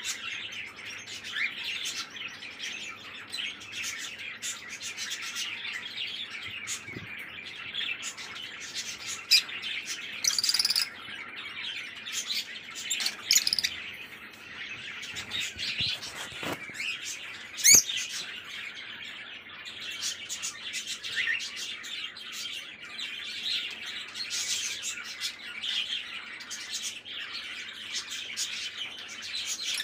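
Small flock of lovebirds chirping continuously in rapid, high twitters, with a few louder sharp squeaks scattered through.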